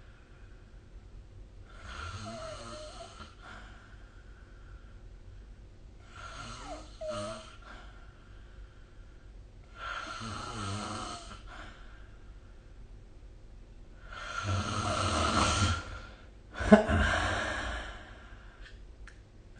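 A sleeping person snoring, five snoring breaths about four seconds apart. The last two are louder, and the final one starts suddenly with a sharp, loud onset.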